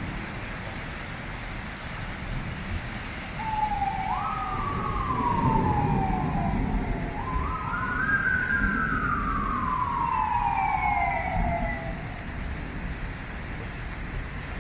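Emergency vehicle siren wailing over steady rain: starting about three and a half seconds in, it sweeps up quickly and slides slowly down twice, fading out near twelve seconds.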